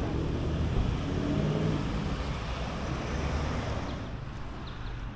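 Steady rumbling noise of road traffic going by, easing off a little near the end.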